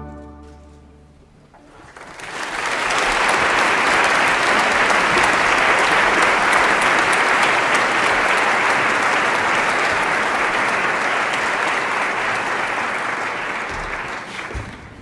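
The orchestra's final chord dies away in the hall's reverberation. Then, about two seconds in, a concert audience breaks into sustained applause, which thins out near the end.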